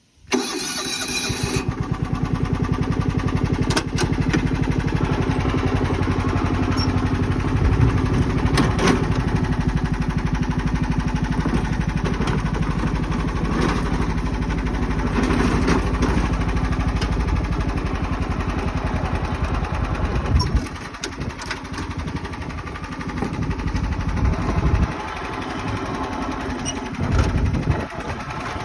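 John Deere 240 riding lawn mower's engine running steadily. It gets quieter and uneven about two-thirds of the way through.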